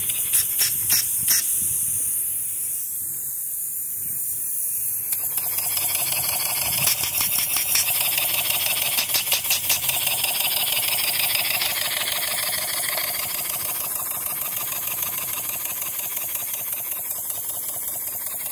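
Small vertical slip-eccentric mill engine hissing as a valve at its top is worked. The hiss swells about five seconds in and carries a fast, regular pulsing for a few seconds.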